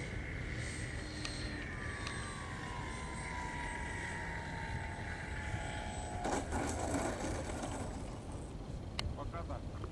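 Radio-controlled model airplane's motor whining and falling steadily in pitch as the plane flies past low and comes down. About six seconds in comes a short rustling clatter as it touches down in the dry grass, with a few light clicks near the end and wind rumble underneath.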